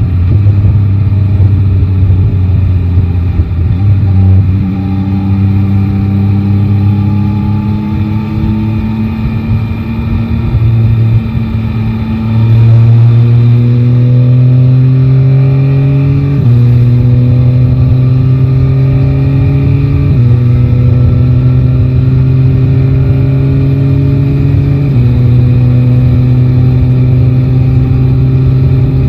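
Yamaha Tracer 9 GT's three-cylinder engine pulling under load, its pitch rising slowly in each gear and dropping at each upshift, five times in all. It gets louder about twelve seconds in.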